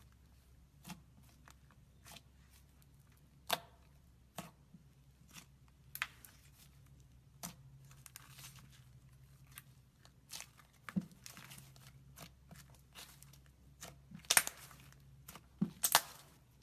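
Slime being squeezed and poked by hand, making irregular sharp pops and crackles, with a few longer crackling stretches and the loudest pops near the end.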